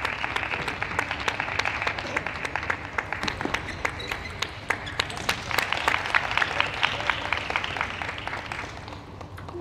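Spectators applauding a won point in a table tennis match, many separate hand claps over a hiss of clapping. It swells again midway and dies down near the end.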